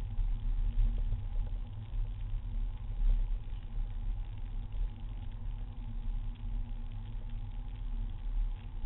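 Diesel Seat Leon driving at a steady pace, heard from inside the cabin: a steady low engine drone and road rumble with a faint hum.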